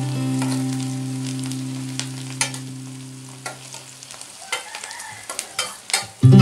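A metal spatula stirs onions, mint and coriander leaves frying in a steel kadai, with sizzling and scattered clinks and scrapes of the spatula against the pan. Under it a held acoustic guitar chord from background music fades out over the first four seconds, and a new strummed chord starts right at the end.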